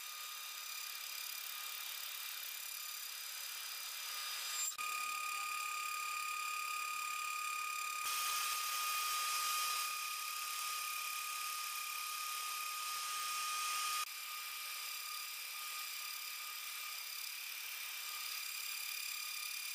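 CNC router spindle running with a steady high whine while milling aluminium plate with a small end mill. The cutting noise grows louder about eight seconds in and drops back suddenly about fourteen seconds in.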